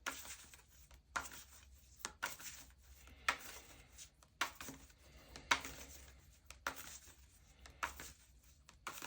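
Tarot deck being shuffled by hand, the cards giving a short papery slap and rustle with each stroke, about once a second in a steady rhythm.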